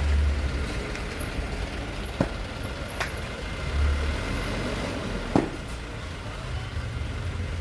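A crane truck's diesel engine running with a low rumble that swells a few times, and three sharp knocks at about two, three and five seconds in.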